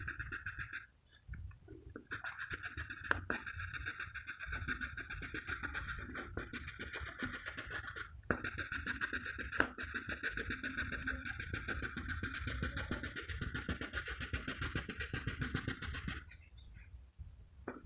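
Pencil scratching back and forth on paper in quick shading strokes, pausing briefly a couple of times, with a few sharp ticks of the pencil on the paper.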